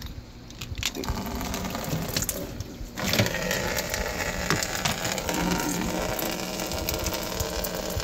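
Water draining out of a punctured plastic shower-curtain liner and pouring into a glass aquarium beneath it. The flow starts about a second in and grows stronger about three seconds in, then runs steadily.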